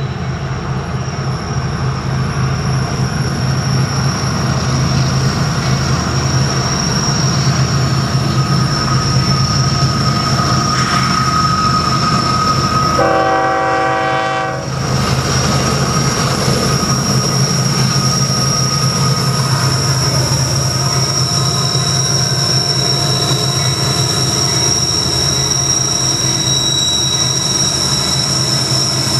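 Union Pacific GE ES44AC diesel-electric locomotives working hard under load, with a deep steady engine drone. About 13 s in, the locomotive horn sounds one chord of several tones for about a second and a half. Thin, high, steady wheel squeal runs above the engines.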